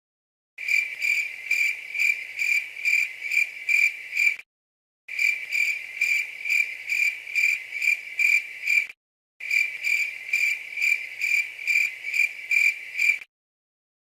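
Cricket chirping in three bouts of about four seconds each, every bout a steady, even train of roughly two to three high chirps a second, with short silent gaps between bouts.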